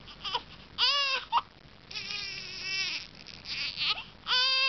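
Baby crying: short high wails at first, then longer ones, with a long sustained wail starting near the end.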